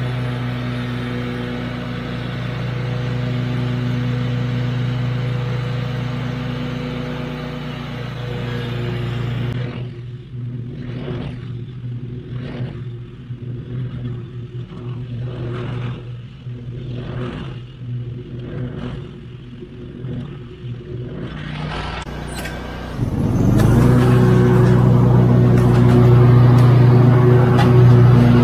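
Zero-turn riding mower engine running steadily at a distance. Midway it drops quieter, with a sound that swells and fades about once a second; near the end the engine is heard up close, rising in pitch and then running loud and steady at high throttle.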